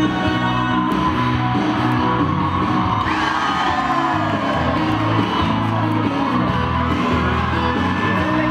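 Music with singing, with whoops and shouts from the crowd, one of them about three seconds in.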